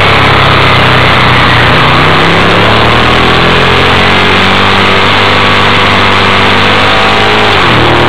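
Ducati 1098's L-twin engine running hard on track, heard from a camera on the instrument cluster over a steady rush of noise. The revs fall over the first two seconds, climb steadily through the corner, then drop sharply near the end as it shifts up.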